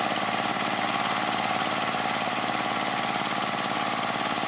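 Chinese D30 diesel engine of a paddy-field channel-digging machine running steadily under load, with an even throb. Over it is a dense hiss from the cutter churning and throwing wet mud.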